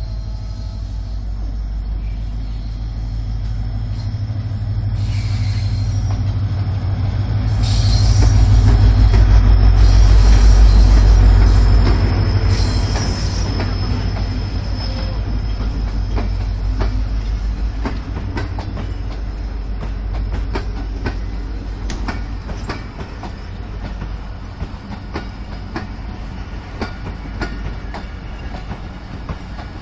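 A Pakistan Railways HGMU-30 diesel-electric locomotive pulls out with a passenger train. Its heavy engine drone grows to its loudest about ten seconds in as it passes, then eases. The coaches follow, rolling by with repeated clacks of the wheels over the rail joints and a brief high wheel squeal.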